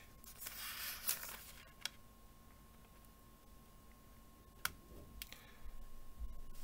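Faint handling sounds over quiet room tone: a soft rustle about half a second in, then a few scattered light clicks.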